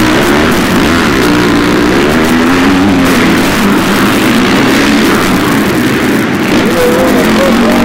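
Motocross dirt bike engines revving up and down as the bikes race past one after another, the engine pitch rising and falling.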